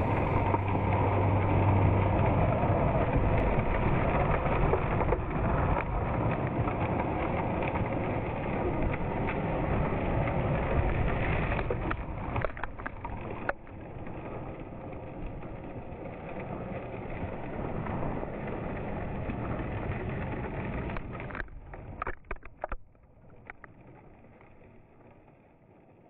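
Losi Baja Rey 1/10 RC trophy truck driving and sliding on loose gravel: its electric drivetrain running and its tyres scrabbling and spraying gravel. Near the end come a few sharp knocks, then the sound fades away.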